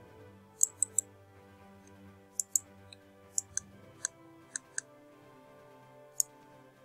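Computer mouse clicking about ten times at uneven intervals, some clicks in quick pairs or threes, over quiet background music with steady held notes.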